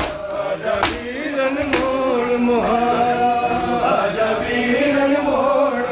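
Men's voices chanting a noha (mourning lament) together, with three sharp hand-on-chest strikes of matam about a second apart at the start, after which the chant carries on with long held notes.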